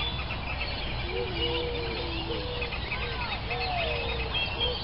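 A chorus of birds: many small birds chirping continuously, with a run of lower, drawn-out calls, some sliding up or down in pitch, from about a second in.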